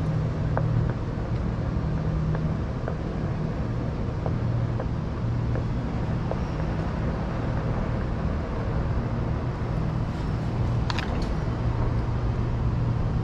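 Steady rushing noise of riding a OneWheel along the street: tyre and wind noise with a low hum that fades in and out, and a few faint ticks.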